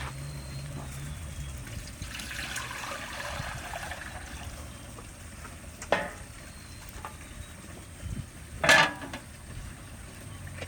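Liquid pouring into a cooking pot for about two seconds, then a few short, sharp kitchen sounds. The loudest comes about three-quarters of the way in.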